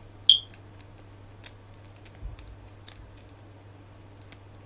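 Small clicks and taps of a plastic action figure being handled, with one sharp, ringing click a fraction of a second in and fainter clicks after, over a steady low hum.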